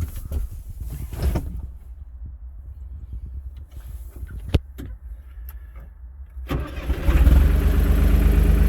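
Valmet tractor's diesel engine starting about six and a half seconds in and settling into a steady idle. Before that there are scattered knocks and clicks over a low rumble.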